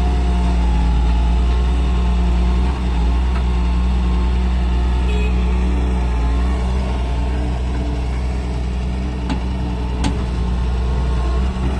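Diesel engine of a Doosan wheeled excavator running steadily under hydraulic load as the machine digs and swings a bucket of soil, its note shifting a little with the work. Two short knocks near the end.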